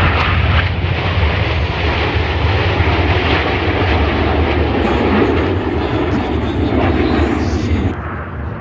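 Loud jet noise from the Frecce Tricolori's Aermacchi MB-339 jets, with their Rolls-Royce Viper turbojets, flying past in formation: a dense roar with a deep rumble that swells in the middle and drops off sharply near the end.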